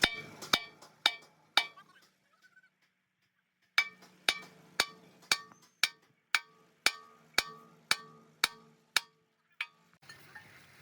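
Hammer blows on steel, each ringing briefly, about two a second: four blows, a short pause, then a steady run of about a dozen more.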